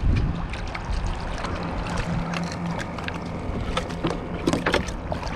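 Wind and choppy water slapping against a kayak hull, with scattered small splashes and clicks. Under it runs a steady low hum that comes and goes, from the kayak's electric trolling motor.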